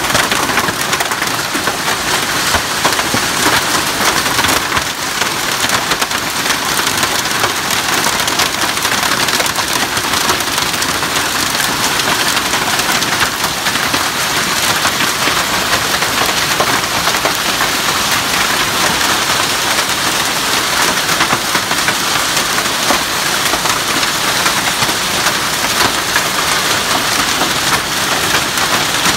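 Heavy downpour with hail: a dense, steady rush of rain and hailstones pelting the ground, full of fine pattering ticks.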